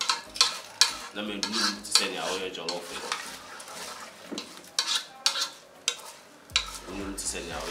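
Wooden spatula stirring oily rice and beef in a large metal pot, with irregular scrapes through the grains and knocks against the pot, over a light sizzle as the rice cooks.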